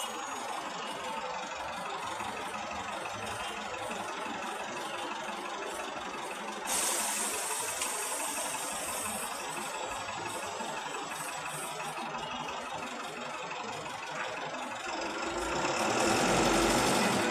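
Vehicle engines idling in slow city traffic, with a red city bus running alongside. A sudden hiss cuts in about seven seconds in and lasts a couple of seconds. Near the end the engine noise swells louder and deeper as the traffic moves off.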